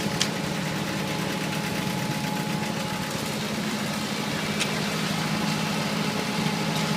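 Construction machinery engine running steadily at an even pitch, with two short sharp clicks, one just after the start and one a little past halfway.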